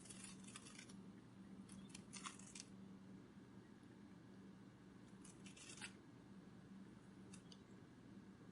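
Faint, short clusters of rapid soft rustling clicks, a butterfly wing-flutter sound effect, coming in four spurts over a low steady hum.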